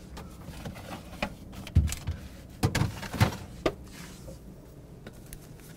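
A handful of sharp knocks and clinks, clustered in the middle, as jars and bottles are shifted around in the door shelves of an open refrigerator.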